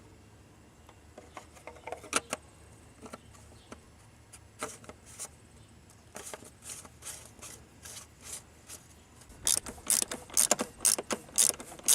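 Ratchet wrench clicking while the oil filter housing cap is turned down and tightened. Scattered clicks at first, then a steady run of about three clicks a second near the end.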